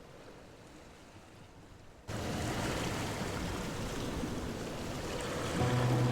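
A faint hiss cuts abruptly, about two seconds in, to a louder steady rushing noise. Steady music tones come in near the end.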